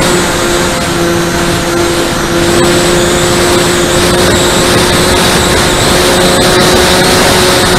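E-flite Convergence VTOL model plane's electric motors and propellers running steadily in forward flight, a constant hum with a higher whine, picked up by a camera on the airframe under heavy wind rush over the microphone.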